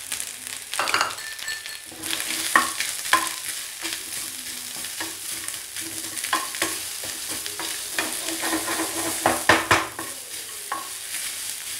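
Grated coconut tipped into a hot aluminium pan near the start, then a metal spatula repeatedly scraping and stirring it with shallots and whole spices over a light frying sizzle, with sharp scrapes and clicks against the pan throughout.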